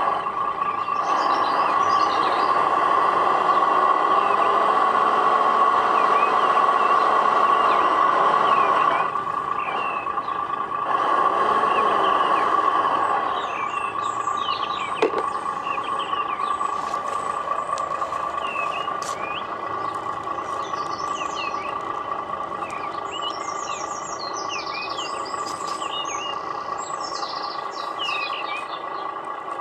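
Radio-controlled Tamiya model truck's simulated diesel engine sound running steadily, louder for a long stretch at the start and again briefly, with one sharp click about halfway. Small birds chirp through the second half.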